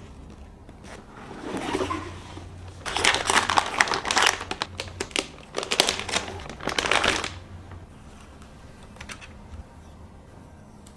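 Plastic packaging crinkling and rustling as it is handled, loudest and densest from about three to seven seconds in, then only a few light clicks.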